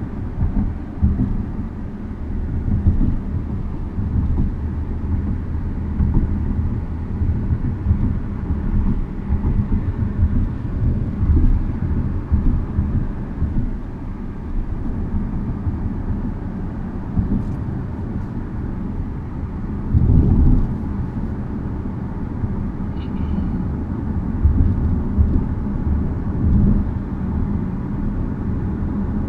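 Cabin noise inside a moving 2015 Audi SQ5: a steady low road rumble with uneven bumps, one heavier jolt about two-thirds of the way through, and faint intermittent rattling. The rattle seems to come from the driver's side door and has survived more than ten repair attempts.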